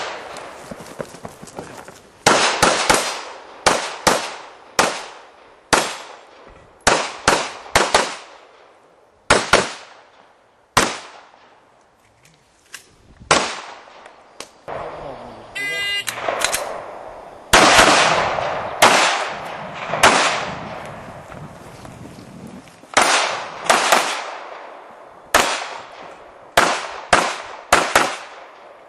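Gunshots from a practical-shooting course of fire, in quick pairs and short strings with pauses between, each shot trailing a short echo. The longest pause, of about two to three seconds, falls near the middle.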